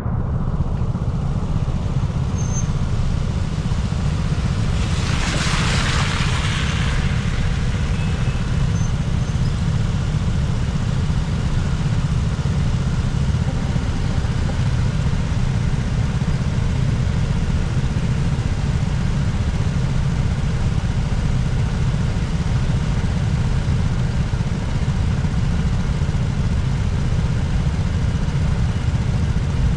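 A car driving along a road: a steady low rumble of engine and road noise, with a brief hissing swell about five seconds in.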